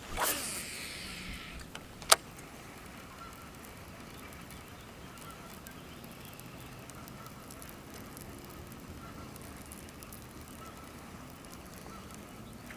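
A cast with a baitcasting reel: the spool whirs and winds down over the first second and a half, then a single sharp click about two seconds in. Faint bird calls come and go in the background.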